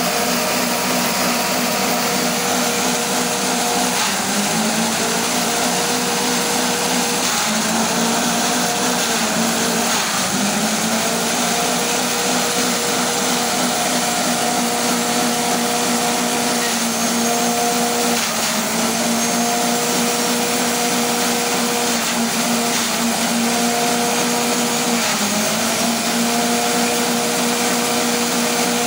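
Forage chopper driven by a small engine, running fast and shredding stalks fed in by hand: a loud, steady whirring hum over a dense rushing noise. The pitch dips briefly several times as bundles of stalks load the blades.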